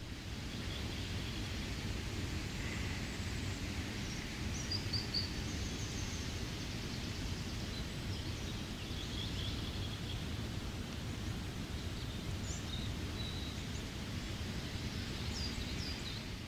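Steady rain falling, with forest birds giving short, scattered chirps now and then.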